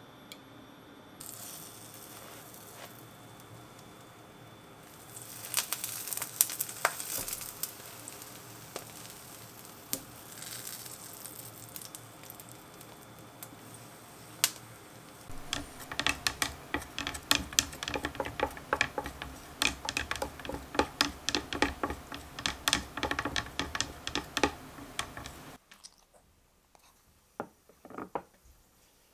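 A toasted sandwich frying in a nonstick pan, sizzling and crackling, with the crackling heavier and denser in the second half. It cuts off suddenly near the end, followed by a few soft clicks.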